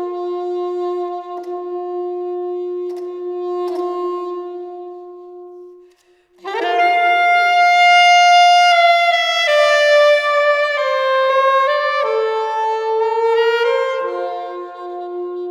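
Solo saxophone improvising long held notes in the enclosed space of a freight elevator. A low sustained note fades away to a brief silence about six seconds in, then a strong new note enters and the line steps slowly downward through a series of held tones.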